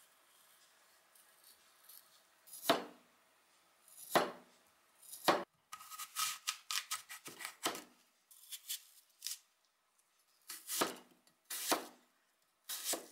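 Chef's knife cutting through kiwi and apple onto a plastic cutting board. Single cuts come a second or so apart, with a quick run of slicing strokes in the middle.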